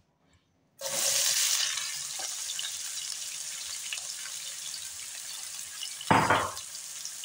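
Sliced onions dropped into hot cooking oil in a frying pan: a sudden loud sizzle starts about a second in and settles into a steady sizzle. A short, louder noise comes about six seconds in.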